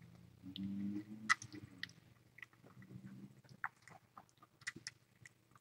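Soft, scattered wet clicks and smacks of chewing, with a brief low hum about half a second in.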